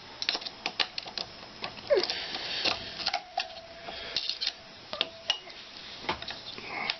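Irregular light clicks and taps of small metal parts and tools being handled on a workbench, with a brief squeak about two seconds in.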